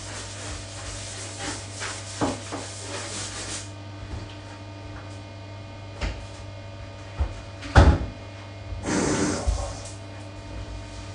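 A bathtub being scrubbed by hand with a sponge: quick rubbing strokes for the first few seconds that then stop, a few knocks, the loudest about two-thirds of the way in, and a short burst of rubbing after it.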